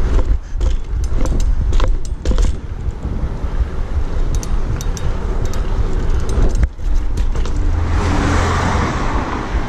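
BMX bike being ridden, heard from a camera mounted on it: a steady rumble of wind and tyres rolling on pavement, with frequent sharp clicks and rattles of the chain and parts over bumps.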